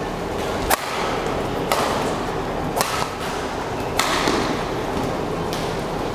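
Badminton rackets striking the shuttlecock in a fast rally: five sharp cracks, about one a second, over the steady murmur of a large crowd.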